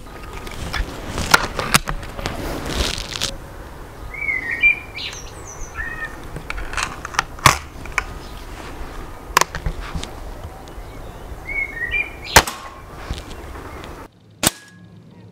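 Remington Express break-barrel air rifle shooting, a sharp crack every couple of seconds. A bird chirps twice in between.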